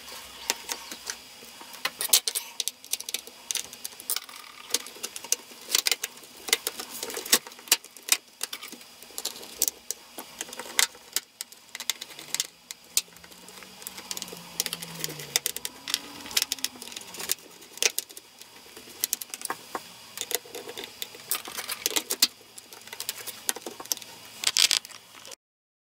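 Clicks, taps and rattles of a Lenovo ThinkPad T440's plastic case being handled and reassembled, with screws driven into the bottom cover by a small screwdriver. The clicks come irregularly, several a second at times.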